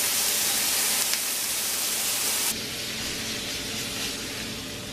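Sliced bell peppers sizzling in olive oil in a stainless steel pan, a steady hiss. About two and a half seconds in it drops abruptly to a much quieter hiss.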